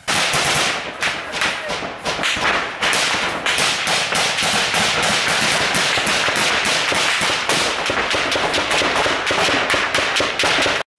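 Sustained small-arms gunfire, many rifle shots a second cracking over a continuous noisy wash. It starts suddenly and stops abruptly just before the end.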